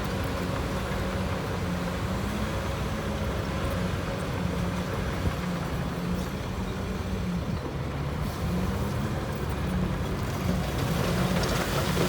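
Heavy construction machinery engine running steadily under load, its pitch wavering a little, with the overall noise growing louder near the end.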